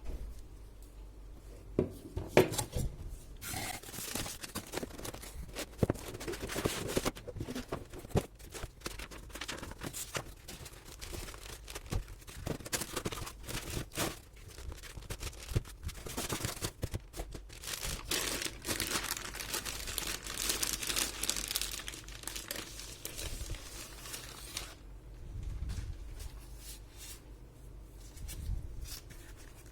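Laptop packaging being handled and opened: wrapping crinkling and tearing, with many small clicks and knocks. There are two longer stretches of rustling, a few seconds in and again past the middle.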